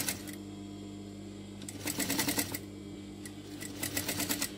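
Industrial sewing machine stitching a seam in two short bursts, a rapid even ticking of the needle, with a steady hum underneath between bursts.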